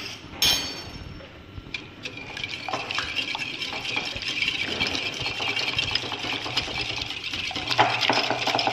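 A clink near the start, then from about two seconds in a wire balloon whisk beating eggs and sugar in a glass bowl: a fast, continuous rattle of the wires against the glass.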